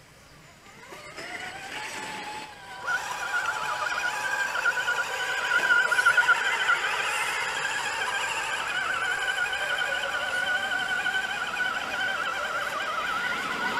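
Electric motors and gearboxes of 1/10-scale RC crawler trucks whining as they climb, the pitch wavering up and down with the throttle. The whine starts about three seconds in and then runs on steadily.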